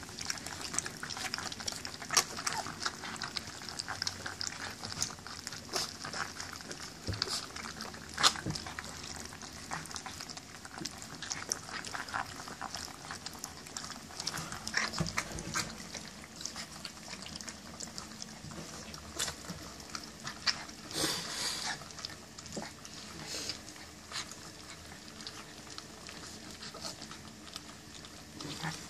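German Shepherd puppies eating kibble together from a stainless steel feeding pan: steady chewing and smacking, with a dense run of small clicks and a few sharper ones as mouths and food knock against the metal.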